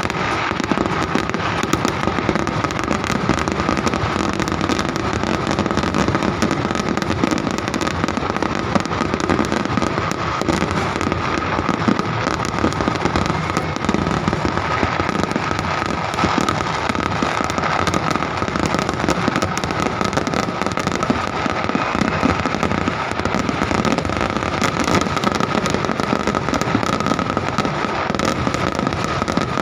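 Fireworks barrage: a dense, unbroken stream of rapid bangs and crackles, with a steady high tone running underneath.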